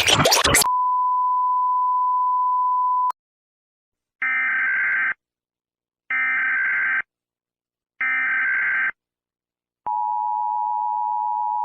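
Emergency Alert System tones: a brief burst of static, then a steady 1 kHz tone for about two and a half seconds, then three one-second squawks of EAS (SAME) digital header data about a second apart. Near the end the two-tone EAS attention signal begins.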